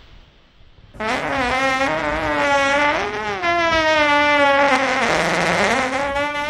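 One long, drawn-out fart that starts abruptly about a second in. It holds a wavering pitch and dips lower for a moment past the middle.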